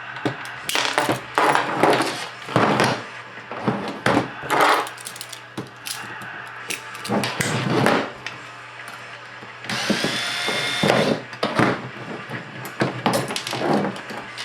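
Cordless drill-driver running in a series of short bursts, backing screws out of an RC crawler's suspension links, with one longer steady whine of the motor about ten seconds in.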